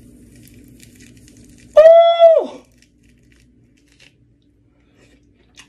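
A man's high-pitched falsetto exclamation, held level and then falling away, about two seconds in. After it comes the faint crackle of a mandarin orange being torn apart by hand.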